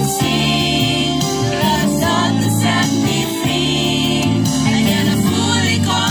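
A small mixed choir of men and women singing a gospel hymn in harmony, with sustained notes in phrases of a second or two.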